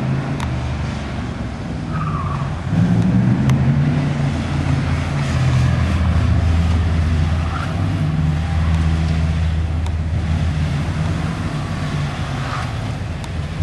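A car's engine working hard as the car is driven through an autocross course of cones. The engine gets louder about a third of the way in, and the tyres give a few brief squeals in the turns.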